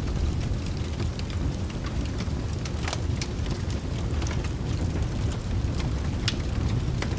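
Layered rain-and-fireplace ambience: a steady deep rumble under a wash of rain, with scattered sharp crackles from a log fire.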